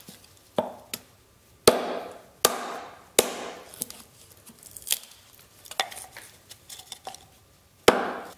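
A GRIP 1.25 lb fiberglass camping hatchet splitting thin strips of wood into slivers on a stump block: about nine sharp, unevenly spaced knocks of the blade going into the wood, loudest about a second and a half in and near the end.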